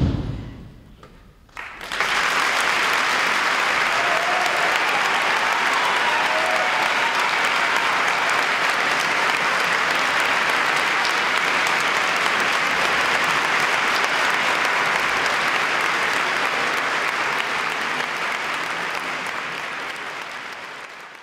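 A children's choir cuts off its final chord, the hall rings briefly and goes quiet, then about two seconds in the audience breaks into steady applause, which fades out near the end.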